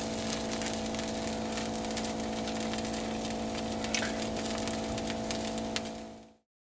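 Bread frying in a skillet on the stove, sizzling steadily with a few sharp pops, over a steady hum. The sound fades out near the end.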